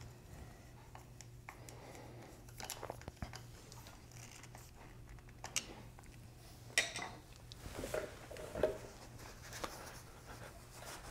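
Faint hand-work sounds on a Honda CR125 engine case: a screwdriver turning the small oil-level screw, scattered light metal clicks and clinks, the sharpest about seven seconds in, then a cloth towel rubbing as the case is wiped. A low steady hum lies underneath.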